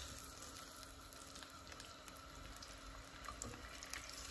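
Skewered marinated prawns sizzling faintly in hot oil in a frying pan, with scattered small crackles.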